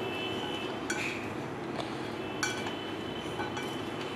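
A spoon clinking against a cooking bowl a few times, each clink ringing briefly, over a steady background hum.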